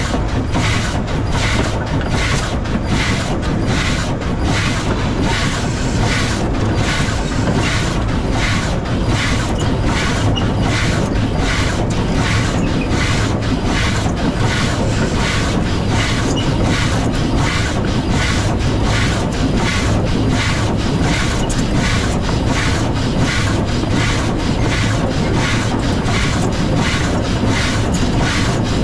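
W class steam locomotive running along the line: a steady, even rhythm of beats about two a second over continuous rolling wheel and rail noise.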